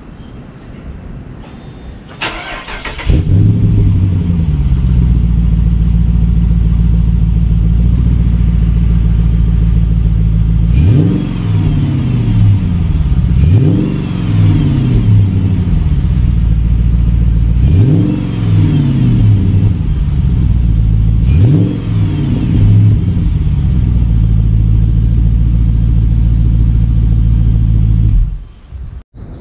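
Dodge Magnum's Hemi V8 heard at the tailpipes through its aftermarket exhaust: started about two seconds in, then idling with four quick throttle blips that rise and fall in pitch, and switched off shortly before the end.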